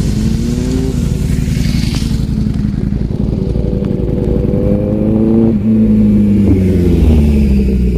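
Superbike engines riding past: an engine note climbs as a bike accelerates toward the microphone, then drops in pitch as it passes close, loudest a little past halfway.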